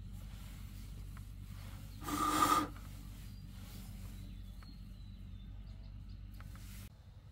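A machine runs with a steady low hum and cuts off suddenly near the end. About two seconds in, a loud harsh burst of noise lasts a little over half a second.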